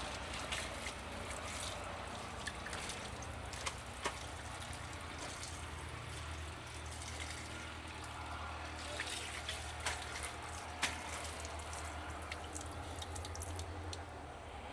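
Water running from a tap and splashing steadily while a foot is washed under it, with a few sharper splashes now and then.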